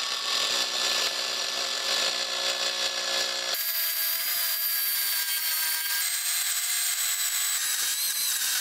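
HPT MA20-AG185N brushless cordless angle grinder on speed setting 3, its abrasive cut-off wheel grinding through a 5 cm solid round steel bar. A steady high whine with the hiss of the cut, the motor under heavy load. The tone changes abruptly about three and a half and six seconds in.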